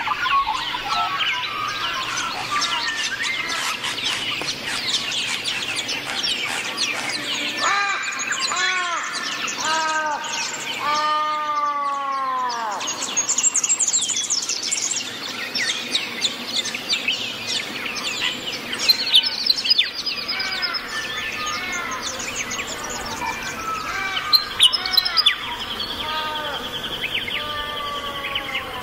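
A chorus of many birds chirping and calling together, with a run of louder, drawn-out calls that droop in pitch about a third of the way in.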